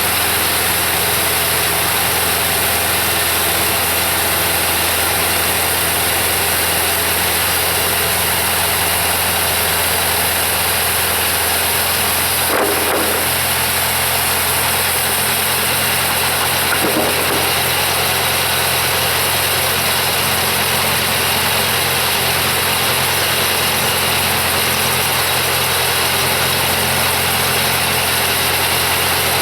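Kubota V1305 four-cylinder diesel engine on a sawmill running at a steady speed, with two brief knocks about halfway through.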